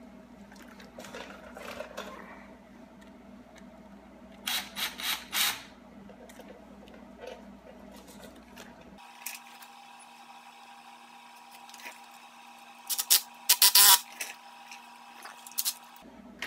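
Handling noise from a silicone intercooler hose and its metal band clamps being worked onto the pipe: short, sharp scrapes and clicks, about four in a quick run near a third of the way in and a denser cluster about three quarters through.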